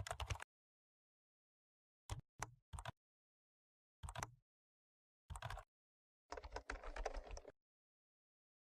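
Rapid clicking like keyboard typing, in several short bursts with dead silence between them; the longest burst, about a second, comes near the end.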